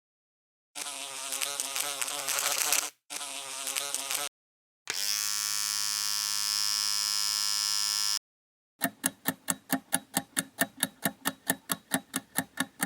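Bug zapper sound clip: a fly-like buzzing in two stretches, then a steady electric hum lasting about three seconds, then a run of sharp, regular pulses at about five a second.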